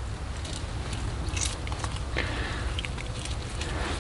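A hand pressing and crumbling a ball of damp groundbait down into an ice-fishing hole: soft squelching and crackling with scattered small clicks.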